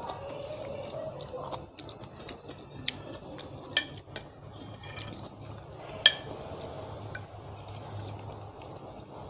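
Eating noodles from a bowl: slurping and chewing, with metal fork and spoon clinking against the bowl a few times, the loudest clink about six seconds in.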